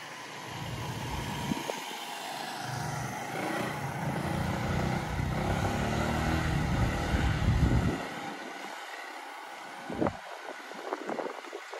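A motor vehicle's engine passing close by, growing louder and then falling away sharply about eight seconds in, followed by a single knock and some light clatter.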